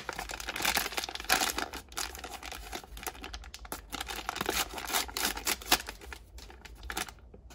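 Plastic toy packaging being handled and unwrapped by hand, crinkling and rustling in irregular bursts that thin out near the end.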